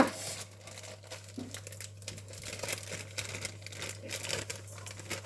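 Crinkling and rustling of a cake-mix packet being handled, in many small irregular crackles.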